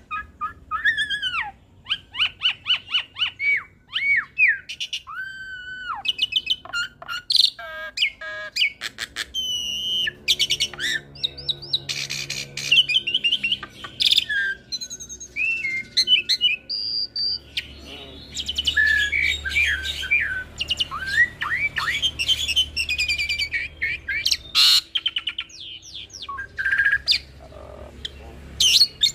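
Hybrid jalak (Asian pied starling × Nias hill myna) singing a continuous, varied song of quick whistled notes and rising and falling glides, broken by a few short harsh squawks.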